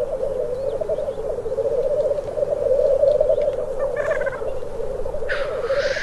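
Male black grouse at its display: a continuous bubbling, cooing song, the lekking call. Near the end a loud hissing 'tchu-whee' sneeze cuts across it.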